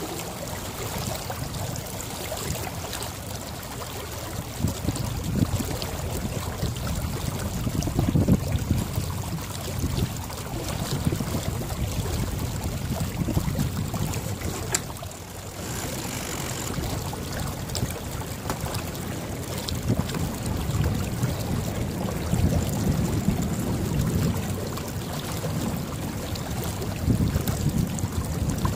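Wind buffeting the microphone and water washing along the hull of a J24 sailboat under sail, the low wind rumble rising and falling in gusts.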